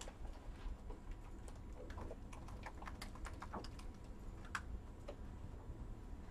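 Typing on laptop keyboards: scattered, irregular key clicks.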